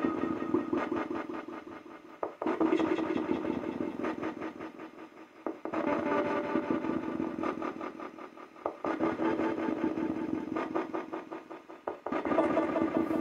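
Garbled, echoing output from a spirit communication device (a ghost box) played through its speaker cabinet: a choppy, noisy jumble that cuts to a new stretch about every three seconds.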